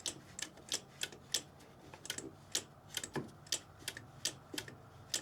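Rapid, uneven series of sharp clicks, about three a second, as the ignition key of a zero-turn mower is worked to check its relays for clicking.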